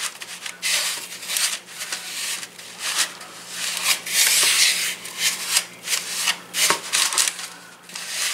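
Metal spoon stirring and scraping chocolate cookie crumbs in a bowl: irregular gritty scraping strokes as the crumbs are blended.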